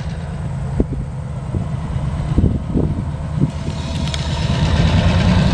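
Diesel engine of an EMD MP15AC switcher locomotive running steadily, mixed with a car driving past close by; the sound grows louder over the last couple of seconds.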